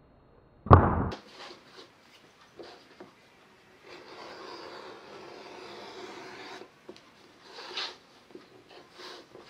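A thick 12 oz veg-tan leather strip set down on a cutting mat with a knock, then an edge beveler scraping steadily along the leather's edge for about two and a half seconds as it shaves off a thin strip.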